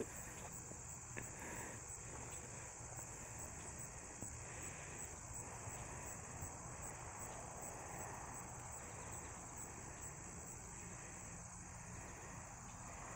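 Faint, steady high-pitched insect chorus, over a low background rumble.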